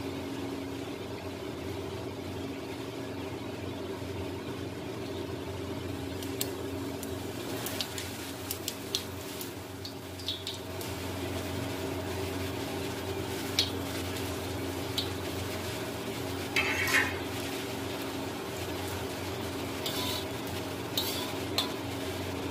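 Metal clinks and scrapes of a steel plate and a slotted steel spatula against an iron kadhai, with a brief sizzle as whole spices and cumin go into hot mustard oil. A steady low hum runs underneath, and the clinks come scattered through the second half.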